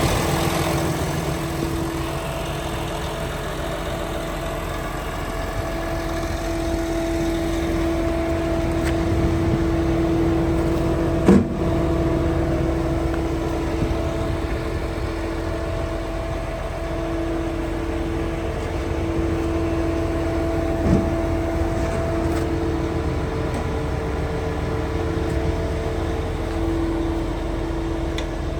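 Liebherr PR 756 bulldozer's diesel engine running steadily, with a steady whine over the engine rumble and two short knocks, about 11 and 21 seconds in.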